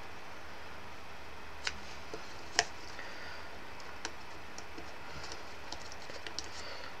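Light clicks and taps of die-cut card pieces being handled and pressed together, scattered and irregular, over a steady low background hum; the sharpest click comes a little over two seconds in.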